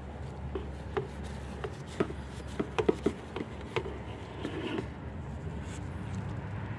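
Short clicks and knocks of a plastic oil bottle being handled against a funnel while engine oil is poured, several in quick succession about three seconds in, over a steady low hum.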